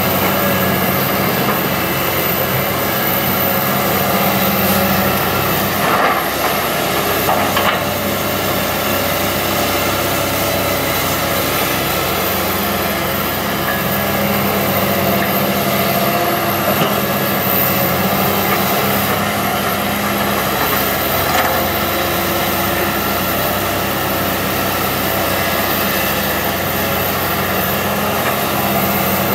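Komatsu PC160 hydraulic excavator's diesel engine running steadily at working revs, with a few short knocks and clanks from the machine about six and seven and a half seconds in.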